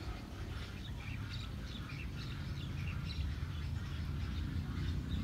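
Several birds chirping and calling in short scattered notes, over a steady low rumble.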